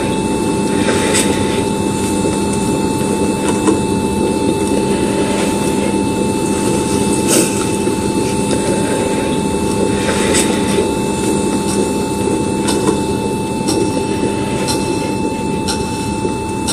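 Mindray bedside patient monitor sounding the continuous single-pitch flatline tone, signalling no heartbeat, over a steady low rushing noise.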